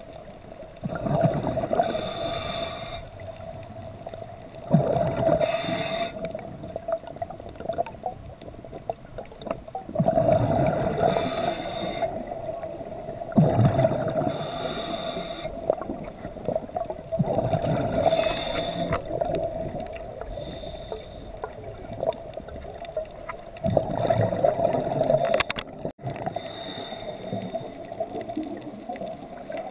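Scuba diver breathing underwater through a regulator: bubbling, gurgling bursts every few seconds, with a steady hum under them.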